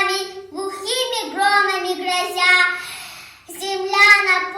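A young girl's voice singing solo in Russian, holding long notes. She pauses briefly for breath about three seconds in.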